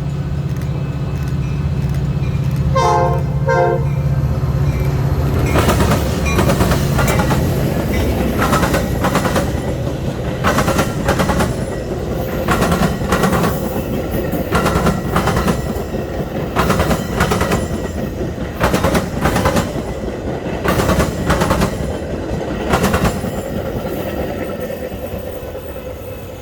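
A train passing close by: the locomotive's diesel engine hums, its horn sounds briefly about three seconds in, then the wheels of the passing cars click over the rail joints in regular pairs, fading near the end.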